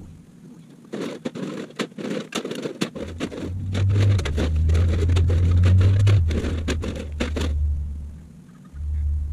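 A plastic bag rustles and crackles with cans clattering inside as it is handled: a dense run of crinkles and clicks. Under it a loud low rumble rises about three seconds in and lasts to near the end.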